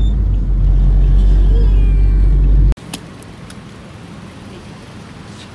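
Car in motion heard from inside the cabin: a loud, steady low road and engine rumble that cuts off abruptly a little past halfway. After that comes a much quieter steady background with a few faint clicks.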